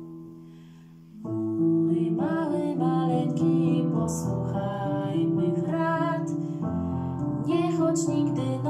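Digital piano playing a slow lullaby: a held chord fades, then new chords come in about a second in. A woman sings the melody over the piano from about two seconds in.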